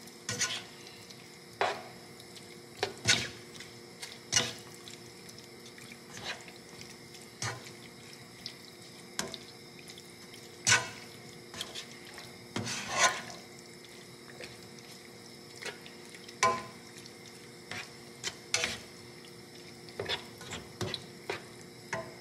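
A metal utensil clinking and scraping against a cooking pot while strips of beef are stirred and turned, a sharp clink every second or two over a faint steady hiss.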